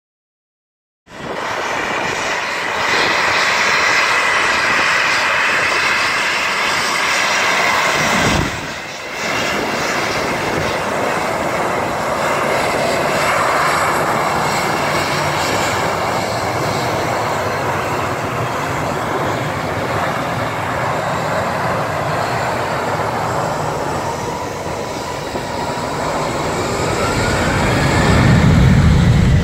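Boeing 737-800's twin CFM56-7B turbofan engines running at high power close by: a loud, dense noise that starts suddenly about a second in, with a brief dip partway through. Near the end a whine rises in pitch and a deep rumble grows as the jet sets off on its takeoff roll.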